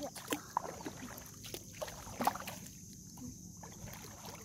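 Shallow tidal water sloshing with small, scattered splashes as someone wades through it, with a few short sharp clicks over the faint lapping.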